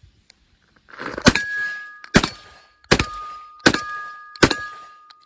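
Five shots fired rapidly from a short-barrelled Benelli M4 Entry 12-gauge semi-automatic shotgun, about 0.8 s apart, starting a little over a second in. After each shot, steel targets ring at two steady pitches that fade between shots; the last ring trails off at the end.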